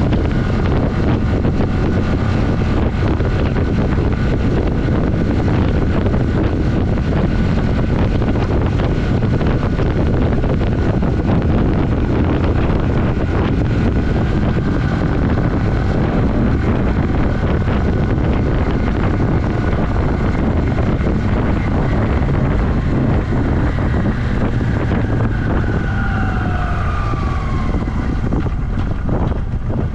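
1982 Yamaha XS400's parallel-twin engine running at road speed, under heavy wind buffeting on the microphone. Near the end a tone falls in pitch.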